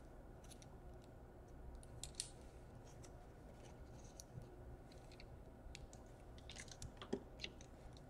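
Faint, scattered small clicks and scrapes of fingers and a small hand tool working cable connectors on a laptop motherboard, with a cluster of sharper clicks about seven seconds in.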